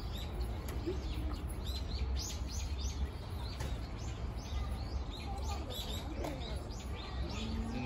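Small birds chirping in quick runs of short, high, falling chirps, several a second, over a low steady rumble.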